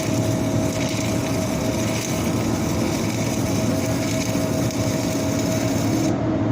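Flux-core arc welding: the arc crackles and sizzles steadily over a steady machine hum while a hot pass is run in the vertical position to fill a wide gap in the joint. The high crackle drops away near the end as the arc stops.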